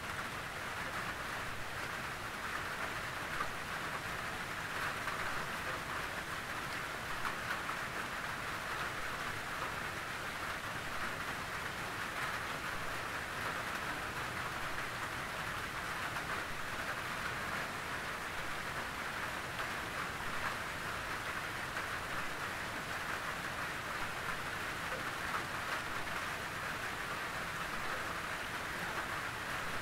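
Steady gentle rain pattering on a tin roof, a dense even hiss of drops with small scattered ticks from individual drops on the metal.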